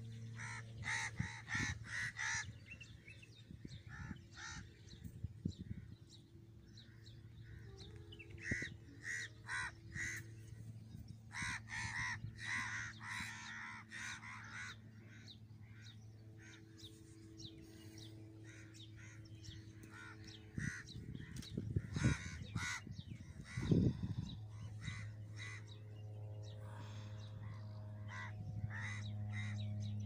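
A flock of birds circling overhead, calling over and over in short cries. The calls come thick in the first half and thin out after about fifteen seconds.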